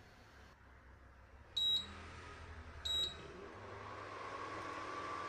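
Two short high beeps from a Prestige induction cooktop's touch buttons, about a second and a half apart, as it is set to 1100 W. About three and a half seconds in the cooktop starts heating: a steady hiss with a thin steady whine comes up and slowly grows louder.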